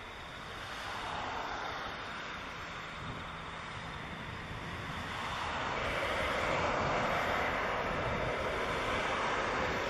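Jet engines of taxiing Airbus A380 airliners, a steady rush of noise that grows louder about halfway through.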